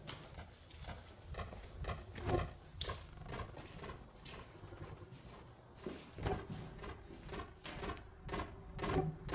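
Footsteps of a person walking on hard stairs and floor: uneven thuds about two a second, a few landing harder about two seconds in and near the end.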